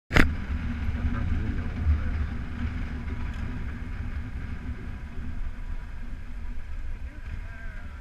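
Adventure motorcycle running along a dirt road, heard as a steady, uneven low rumble. A sharp click comes right at the start.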